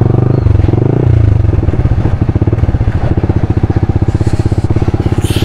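Motorcycle engine running with an even firing beat, close to the microphone. Its revs change about half a second in as the bike moves off.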